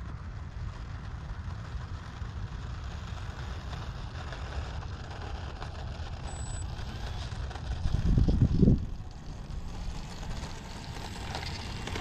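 Wind buffeting the microphone in a steady low rumble, with a stronger gust about eight seconds in.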